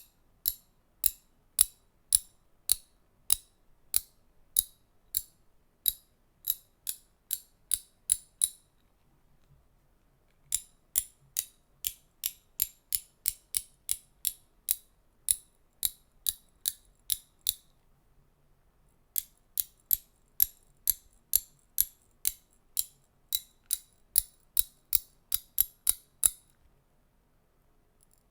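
Ratchet being worked slowly, giving crisp single clicks at about two a second. The clicks come in runs of several seconds with short pauses between them, about a third and two-thirds of the way through.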